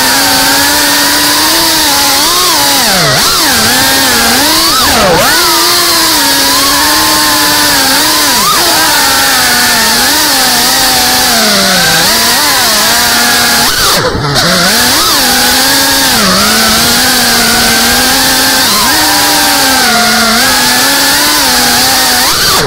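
GEPRC CineLog35 FPV cinewhoop's motors and propellers, a loud buzzing whine whose pitch rises and falls constantly with the throttle. It dips sharply several times, deepest about 14 seconds in, where the sound briefly drops away as the throttle is chopped.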